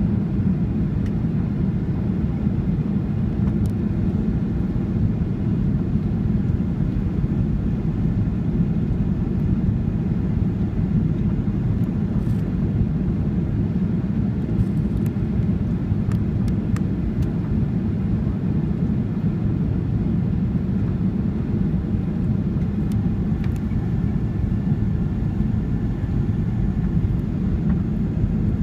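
Steady cabin noise inside a Boeing 737-700 on approach with flaps extended: an even, low rumble of its CFM56-7B engines and the airflow over the fuselage, heard from a seat behind the wing.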